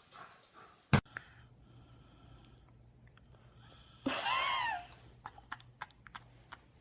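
A single short, high call whose pitch rises and falls, about four seconds in, likely from an animal. A sharp click comes about a second in, and a few faint ticks follow the call.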